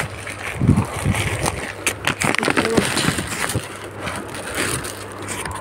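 Crinkling and rustling of a courier parcel's plastic and paper packaging as it is handled and pulled open, with scattered clicks and a dull knock about a second in.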